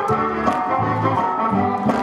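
Shotis (schottische) dance music playing with a steady beat, a recurring bass note and a sustained melody.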